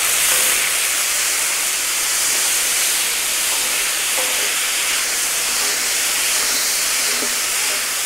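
Gyros meat strips sizzling in a very hot pan, a steady dense hiss as the meat juice boils off, while two wooden spatulas stir and toss the meat.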